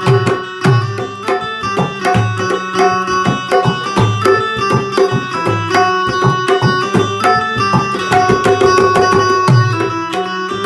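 An amplified Indian banjo (bulbul tarang) plays a strummed melody, its keys picking out the tune. A dholak hand drum keeps a brisk rhythm underneath, mixing deep bass strokes with sharp slaps on the treble head.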